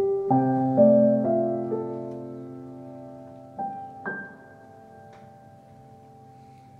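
Background piano music: a few slow notes and chords struck in the first two seconds and left to ring, then two more soft notes about three and a half and four seconds in, fading away.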